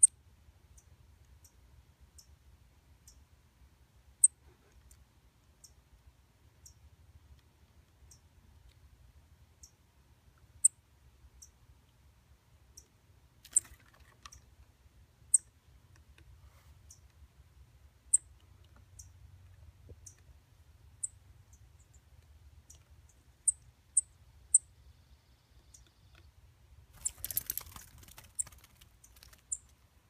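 Short, high-pitched cheeps of a fledgling songbird, repeated irregularly every second or two, with a brief rustle of movement near the end.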